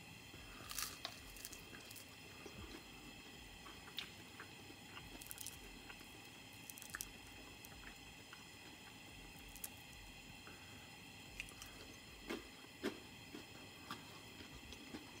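A person chewing and breaking apart crisp air-fried roast potatoes by hand, heard close up as scattered soft clicks and squishy mouth sounds over a faint steady hum.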